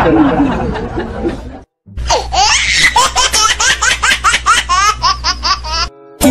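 A high-pitched laughter sound effect: a fast run of rising, squealing giggles, about four a second. It starts about two seconds in, after a short cut to silence, and stops abruptly near the end.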